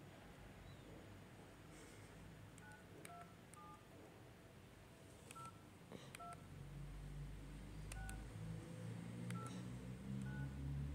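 Nokia 1600 keypad tones: about a dozen short, faint beeps, each at a different pitch, as keys are pressed one by one to type a star-hash service code. A low rumble rises under the second half.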